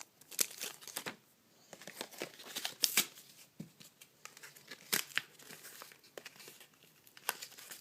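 Plastic blister packaging and its card backing crackling and tearing as they are pried open by hand, a run of irregular sharp crinkles and snaps, the loudest about three and five seconds in.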